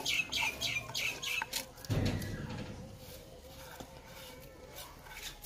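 A chicken clucking in a quick run of about six short calls, then a low thump about two seconds in.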